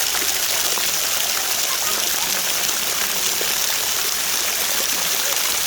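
Mountain stream water rushing steadily over rocks, with children's voices faint in the background.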